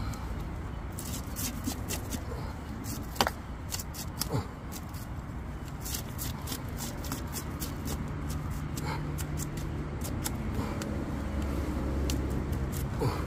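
Knife scraping scales off a whole fish, a quick run of short rasping strokes, over a steady low rumble.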